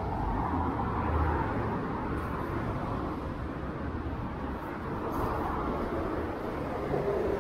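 Road traffic on a multi-lane city street: a steady wash of cars going by.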